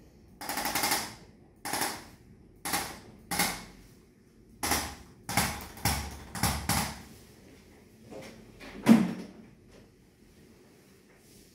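Handheld chiropractic adjusting instrument firing against a patient's back: about eight short bursts of rapid clicking thrusts, the first the longest, in the first seven seconds. A single louder thump follows about nine seconds in.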